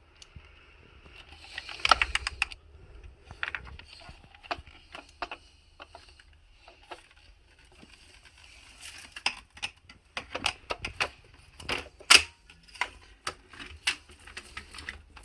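Hard plastic vacuum cleaner parts being handled and pushed together: scattered clicks, knocks and rattles, in a cluster about two seconds in and again through the second half, the loudest knock about twelve seconds in.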